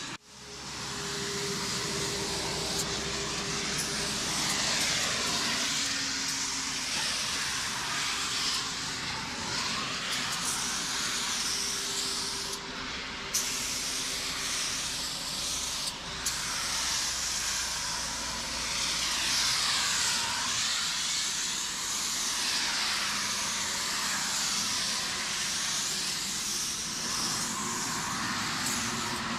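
Aerosol spray paint can hissing almost continuously while paint is sprayed onto a wall. The hiss rises and falls in tone as the can sweeps back and forth, with a couple of brief breaks where the nozzle is let go.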